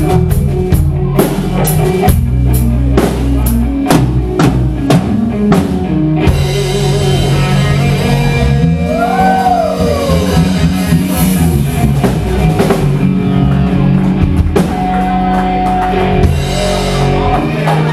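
Live band playing an instrumental stretch on drum kit, electric guitar and bass. For the first six seconds the drums hit about twice a second; then the band plays more densely, with a guitar note that bends up and back down about nine seconds in.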